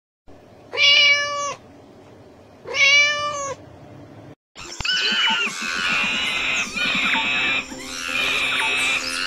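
A kitten meowing twice: two drawn-out meows about two seconds apart. After a brief break, a busy, overlapping run of high-pitched animal calls starts and carries on.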